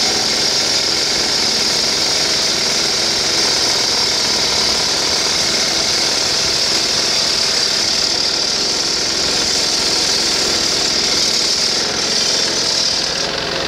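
Stone-cutting saw cutting granite: a loud, steady high-pitched hiss over an even machine hum. The highest part of the hiss drops away shortly before the end.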